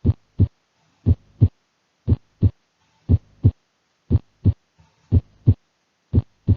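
Auscultation recording of normal heart sounds: a lub-dub, S1 then S2 about a third of a second later, about once a second. The second sound is slightly higher in pitch, and nothing is heard between them, the sign of a normal heart without a murmur.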